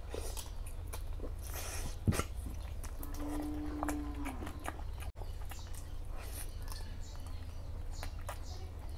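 Close-miked eating sounds of rice and mutton fat curry eaten by hand: wet chewing, lip smacks and mouth clicks, with a sharp click about two seconds in. A short steady hum lasting about a second and a half, dropping in pitch as it ends, comes about three seconds in. A steady low hum runs underneath.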